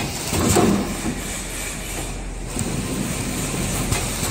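Cup packing machine running: a steady mechanical noise, with a louder short burst about half a second in. These bursts come back every four seconds or so as the machine cycles through bagging the cup stacks.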